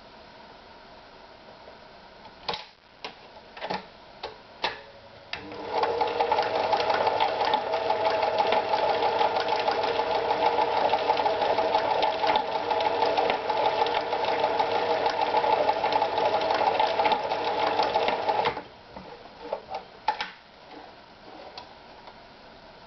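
Privileg Super Automatik TopStar 796 sewing machine running at a steady speed for about thirteen seconds, then stopping suddenly. A few sharp clicks come before it starts and after it stops.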